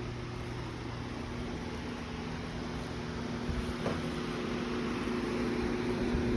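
A steady machine hum with a low hiss, holding a few even tones, with a couple of soft knocks a little past the middle.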